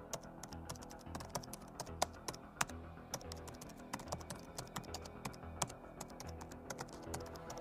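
Computer keyboard typing: quick, irregular sharp clicks over background music with a pulsing low bass.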